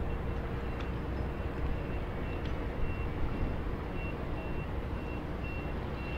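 A vehicle's reversing alarm beeps about twice a second over a steady low engine rumble.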